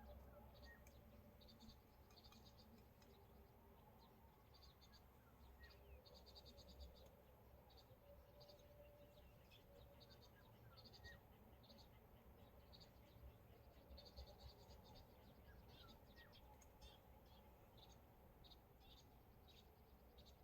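Near silence with faint, irregular high-pitched chirping throughout from small animals, and a few short rising whistles.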